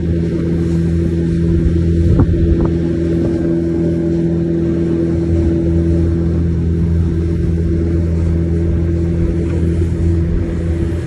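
Motorboat engine running steadily at speed, an even drone with no change in pitch, over the rushing noise of water past the hull.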